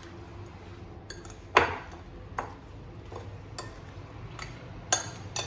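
A metal spoon clinks and scrapes against a glass bowl while stirring chopped raw mango pieces coated in spices. The clinks come irregularly, about eight of them, and the loudest is about one and a half seconds in.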